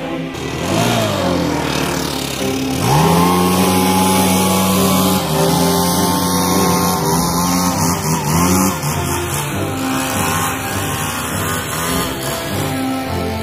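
Stihl backpack leaf blower engine revving. Its pitch sags about a second in, climbs sharply to full throttle about three seconds in, and then holds high and steady with a few brief dips.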